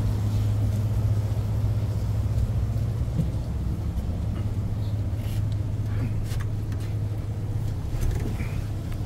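Steady low hum of a ship's engines, with a few faint clicks in the second half.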